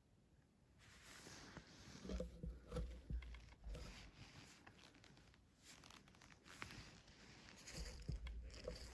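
Soft rustling and handling noise close to the microphone, starting about a second in, with low bumps about two seconds in and again near the end.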